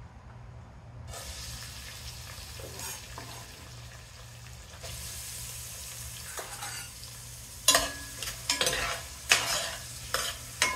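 Chopped onions, bell peppers and banana peppers dropped into hot vegetable oil, sizzling; the sizzle starts suddenly about a second in and grows louder near the halfway point as more goes in. In the last few seconds a spoon stirs the vegetables, with several sharp knocks and scrapes against the pot.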